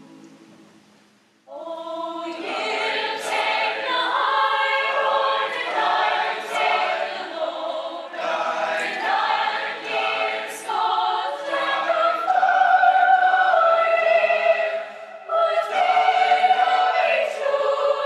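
High school mixed-voice show choir singing. A held chord dies away, and about a second and a half in a new song begins, with full sustained chords and a brief breath break near the end.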